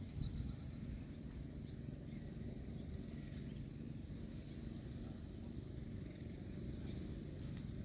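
Outdoor ambience: a low steady rumble with short high chirps scattered through it, several in a quick run just after the start.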